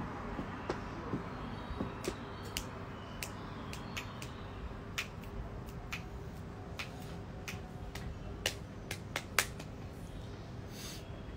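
Irregular sharp clicks, a dozen or more, over a steady outdoor city background hum. The loudest click comes near the end.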